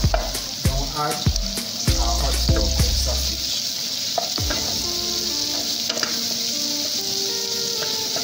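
Onions frying in hot oil in an aluminium pan, a steady sizzle, while a wooden spatula stirs them, scraping and knocking against the pan.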